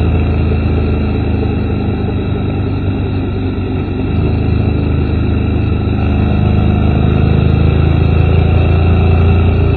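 Honda motorcycle engine running steadily at road speed under wind and road noise. It grows a little louder from about the middle on, as the bike pulls out of a curve.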